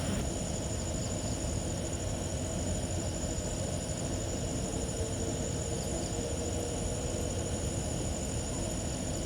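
A steady, high-pitched night insect chorus that holds without pause, over a low, rumbling noise.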